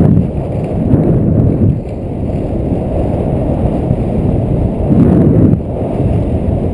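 Wind rushing and buffeting over the microphone of a GoPro on a skier going downhill, as a loud, low rumble. It surges louder about a second in and again about five seconds in.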